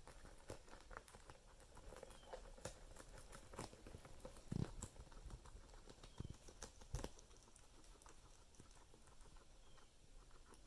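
Faint scattered small clicks and rustles of guinea pigs moving about, with soft low thumps about four and a half and seven seconds in.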